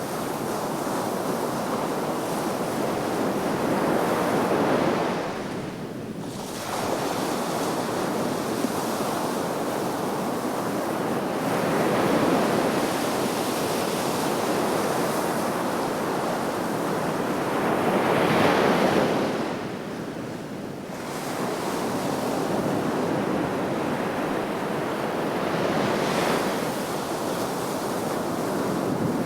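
Sea waves washing onto the shore in a continuous rush, swelling and falling back every six to eight seconds, with wind on the microphone.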